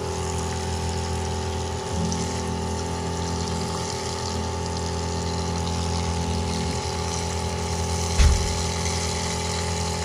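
Water spraying from a RinseKit Pro hose nozzle on its shower setting onto an iced-up refrigeration coil, melting the ice, over a steady machine hum. A single loud thump comes about eight seconds in.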